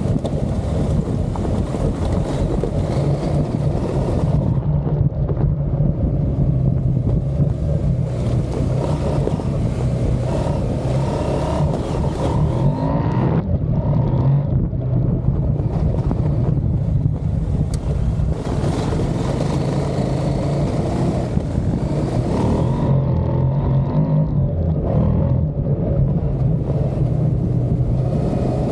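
KTM adventure motorcycle's engine running steadily at riding speed, with wind noise on the microphone and a few brief lulls.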